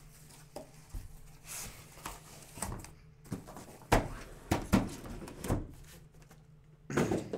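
Cardboard shipping case being opened and shrink-wrapped card boxes pulled out: rustling and scraping of the cardboard, then several sharp knocks as the boxes are set down on the table, the loudest from about the middle onward.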